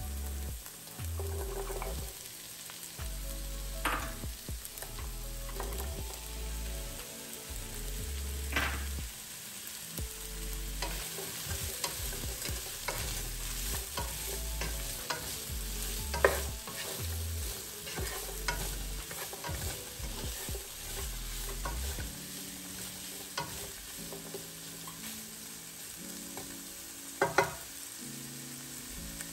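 Sliced onion and diced vegetables sizzling in oil in a nonstick frying pan, stirred with a wooden spoon, with a few sharp knocks scattered through.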